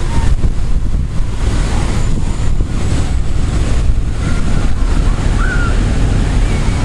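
Strong thunderstorm wind gusting through the trees and buffeting the microphone, a loud rushing noise with a deep rumble underneath.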